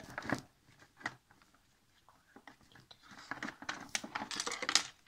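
Rummaging in a wooden drawer of toys: a few sharp knocks and clicks in the first second, then a dense run of rustling and crinkling from about three seconds in.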